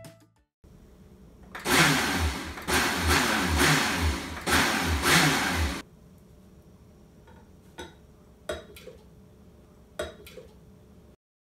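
Countertop blender running loudly in about four short pulses. Then thick smoothie is poured from the blender jar into a glass, with a few soft plops and knocks.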